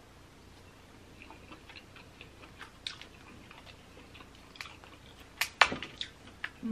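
Close-up eating sounds of Jonah crab claw: chewing, with small clicks and crackles as pieces of cracked claw shell are picked apart by hand. Two louder sharp clicks come about five and a half seconds in.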